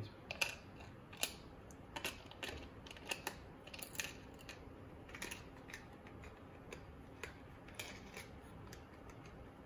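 A scattering of short, sharp hard-plastic clicks and taps from a small clear plastic case holding a circuit board being handled and opened, thicker in the first few seconds.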